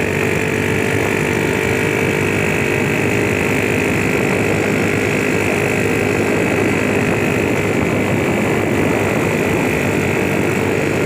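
Small engine running steadily at an even speed, a constant hum with a higher whine over it that holds unchanged throughout.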